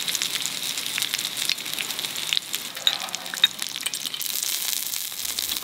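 Mushrooms and garlic frying in rendered pork-belly fat: a steady sizzle with many small crackling pops.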